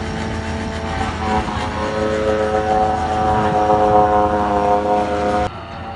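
A motor running steadily with a pitched hum that rises slightly, cut off abruptly about five and a half seconds in.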